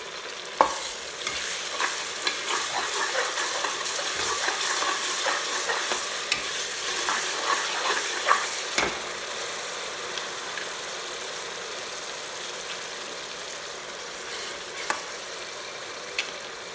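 Sliced onions, paste and whole spices sizzling in hot oil in an aluminium pressure cooker. A metal spatula stirs and scrapes against the pot with small knocks for about the first nine seconds, then the sizzle goes on more quietly and evenly.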